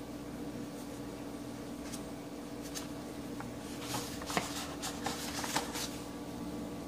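A sketchbook page turned by hand: a crisp paper rustle with several sharp crackles about four seconds in, lasting under two seconds, over a steady low hum.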